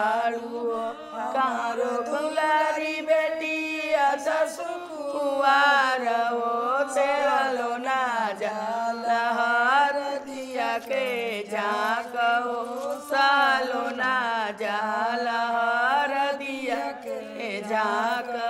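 Background song: one voice singing long, held, wavering chant-like lines.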